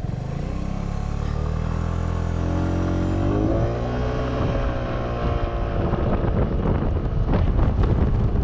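Suzuki Burgman 200 scooter's fuel-injected single-cylinder 200cc engine pulling away, its note rising steadily over the first few seconds and then holding as the scooter gets up to speed, running smoothly with no misfire now that the gas cap is sealed. Wind noise on the microphone builds toward the end.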